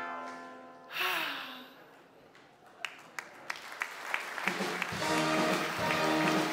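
Ukulele's last chord ringing out and fading, then a brief voice sound with a falling pitch. Scattered hand claps begin about three seconds in and build into audience applause, with music starting up under it about five seconds in.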